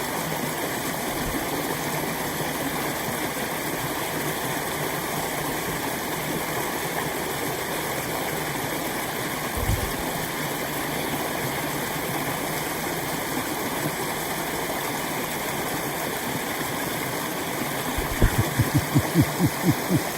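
Steady rush of water running through and over a beaver dam. A single low thump comes about halfway, and near the end there is a quick run of low thuds.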